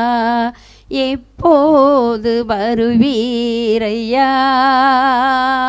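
A woman singing a slow Tamil Christian worship song solo, holding long notes with a wavering pitch. She breaks off briefly twice near the start, then sings a melodic run and settles into another long held note.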